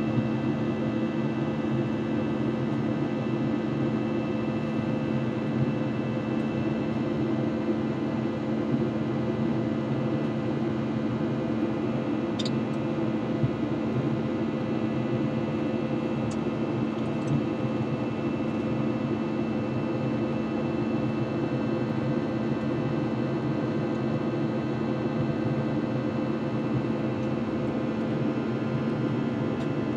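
Steady cabin drone of an Airbus A321 in flight: engine and airflow noise with a constant low hum and a few faint steady tones above it. A few faint clicks occur midway.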